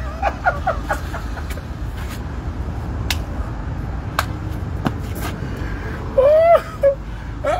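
A man's short, loud exclamation about six seconds in, over a steady low outdoor rumble with a few faint clicks.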